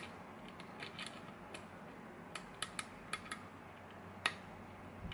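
Small, sharp metallic clicks at an irregular pace as a hook pick lifts and sets the pin stacks in a GeGe pin-tumbler lock under tension, the loudest about four seconds in.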